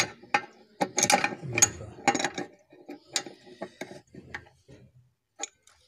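Metal wrench clicking and scraping on the brass headgear of a wash-basin tap as it is turned. There is a dense run of sharp clicks and grinding strokes for the first two and a half seconds, then a few single clicks.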